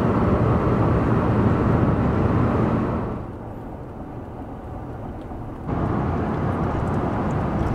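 Steady road and wind noise of a pickup truck driving at highway speed, heard from inside the cab. It drops quieter a few seconds in, then comes back up near the end.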